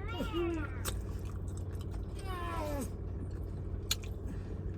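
A cat meowing twice, each call falling in pitch, the second about two seconds in.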